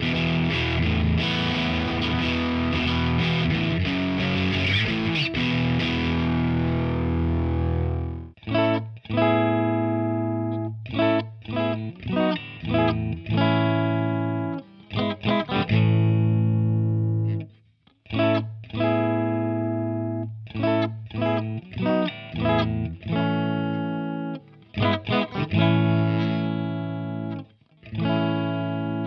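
G&L SC-3 Deluxe electric guitar with stock MFD single-coil pickups, played through a Diezel VH4 head and 4x12 cab with heavy distortion. It starts with about eight seconds of sustained ringing chords, then switches to short, stabbed chords and riffs that cut off abruptly, with brief silences between phrases.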